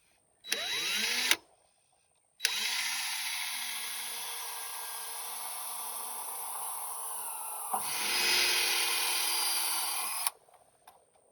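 Power drill boring into a car's firewall for rivet nuts. A short spin-up burst comes first, then one long run of about eight seconds whose sound changes a little before it stops.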